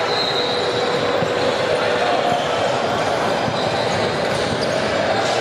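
Steady echoing din of a gymnasium during a basketball game, with basketballs bouncing on the hardwood floor.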